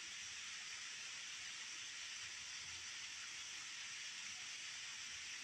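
Waterfall water pouring down a rock face: a steady, even rush of falling water that does not change.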